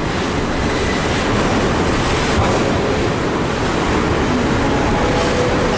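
Broad-gauge container freight wagons rolling past: a steady rumble and clatter of wheels on rail, with the wagons banging. A faint wheel squeal comes in near the end.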